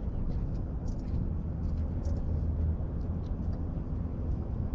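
Steady low rumble of distant motor traffic, with faint high ticks scattered over it.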